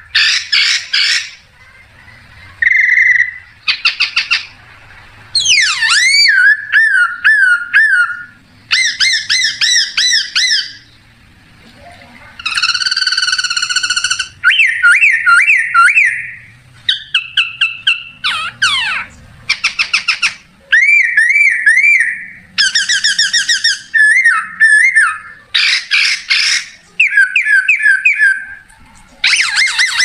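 A man imitating bird calls by blowing on a leaf held between his lips: a run of loud, warbling whistled phrases, fast trills and chirps, with short pauses between them and one longer held phrase about halfway through.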